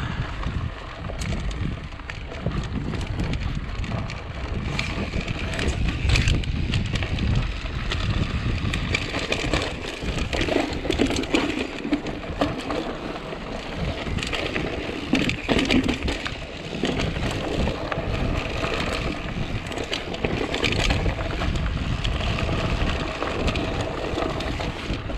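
Mountain bike riding fast down a dirt and rocky singletrack: tyres crunching over dirt and stones and the bike rattling over bumps, with a steady low rumble of wind on the microphone.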